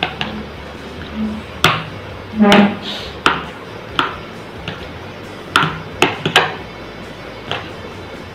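A metal spoon clinking and scraping against a bowl in irregular taps while chopped vegetables and cheese cubes are stirred. A short hum of a voice comes about two and a half seconds in.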